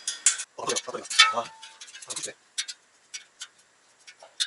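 Metal tools and bicycle wheel parts clinking and clicking as they are handled, irregular and sharp, with one short ringing tone about a second and a half in.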